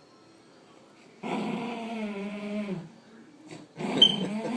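Dog play-growling: a growl of about a second and a half that drops at its end, then after a short pause a second growl with a brief sharp high note as it starts.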